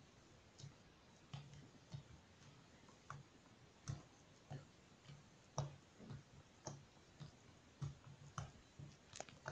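Quiet little clicks and pops from a single finger poking repeatedly into slime, about two a second, uneven in strength.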